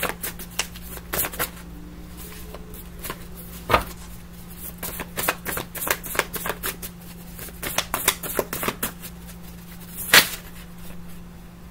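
A deck of tarot cards being shuffled and handled: a run of irregular papery clicks and riffles, with a sharper snap about four seconds in and again near ten seconds, over a steady low hum.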